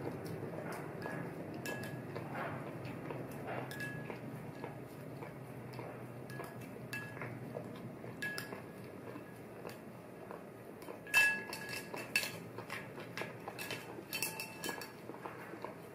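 Spoon clinking against a ceramic cereal bowl: light ringing taps through the first half, then a louder run of clinks about eleven seconds in and another cluster near the end.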